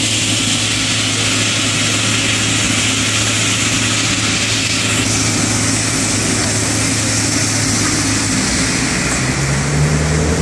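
A fire engine's motor running steadily, a constant low hum with a hiss over it.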